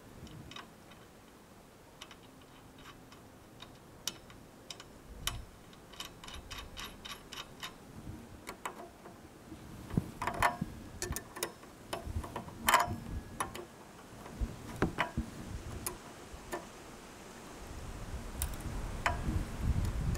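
Sharp metallic clicks and clinks of a hook spanner and a flat wrench on a vintage bicycle bell-bearing bottom bracket, as the bearing cup and lockring are turned and set. A quick run of small even clicks comes about a third of the way in, louder ringing clinks around the middle, and a low rumble near the end.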